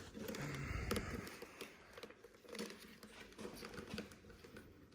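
Quiet handling noises: scattered light clicks, taps and crinkling as hands work sealing tape around a taillight opening.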